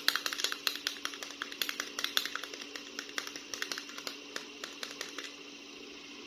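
Rapid, irregular clicks and crackles of plastic being handled, dense for about five seconds and then dying away to a steady faint hum.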